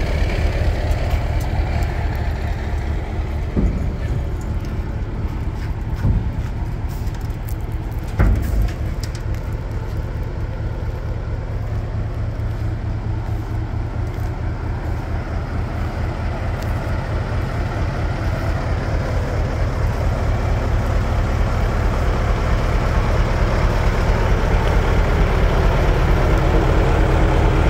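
Scania LS141 truck's V8 diesel running at idle with a steady, even low throb, getting louder near the end. A few short clunks come in the first nine seconds.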